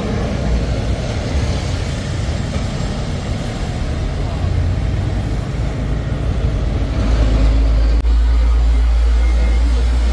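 Street traffic noise as a vintage Milan Peter Witt-type tram approaches. About seven seconds in, a heavy, steady low rumble swells as the tram draws up close alongside.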